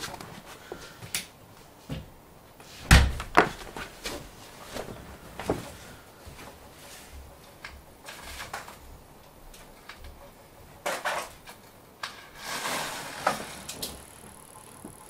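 Scattered knocks and clicks of objects being handled on a workbench, the sharpest pair about three seconds in, with a short rustle near the end.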